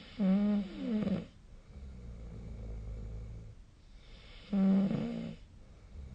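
A person snoring in sleep: two loud, pitched snores about four seconds apart, with quieter low breathing rumbling in between.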